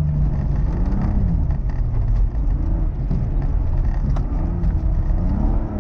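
Rally car driven hard on a snowy gravel stage, heard from on board: the engine's revs rise and drop several times as the driver works through the gears, over a steady rumble of tyres on the loose surface. Short sharp ticks of grit and ice hit the car's underside throughout.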